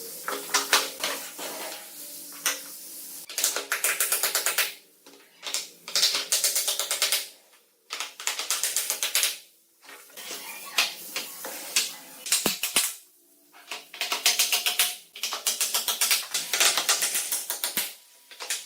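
Repeated bursts of rapid clicking, each lasting a second or two with short gaps between, over background music.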